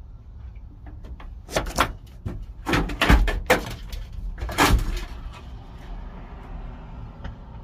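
Sunroof drain tube and the trimmer line taped to it being pulled out through the car's body cavity, scraping and knocking against the sheet metal in a quick cluster of rubs and thumps from about one and a half to five seconds in.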